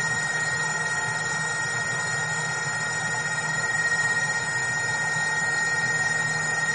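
Yamaha Seawing underwater scooter's electric motor and propeller running underwater: a steady high whine at one constant pitch over a watery hiss.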